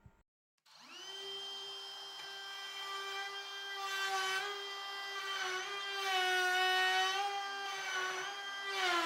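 Electric power tool motor starting up and running with a steady whine, its pitch sagging briefly several times as it takes load.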